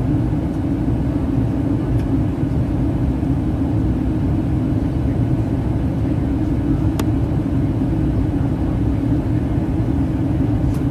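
Steady cabin noise inside a Boeing 737-800 on approach: engine and airflow rumble with a strong low hum. Two faint clicks, about two and seven seconds in.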